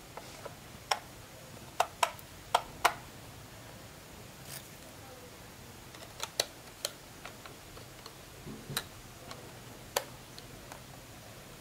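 A series of sharp, irregular clicks and taps of small hard objects being handled, about ten in all: a cluster of five in the first three seconds, a few more around the middle and one near the end.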